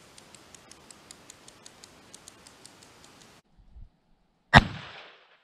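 A single rifle shot from a Whitney Kennedy lever-action rifle in .38-40: one sharp, loud crack about four and a half seconds in that rings out briefly. Faint, quick ticking comes before it.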